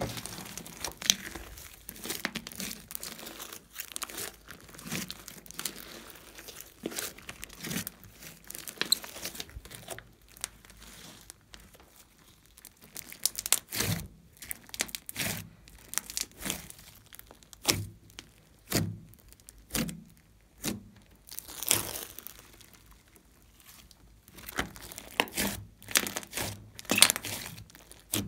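Hands kneading, stretching and pressing a large lump of glossy slime with small beads mixed in, giving sticky crackling and irregular sharp pops and clicks.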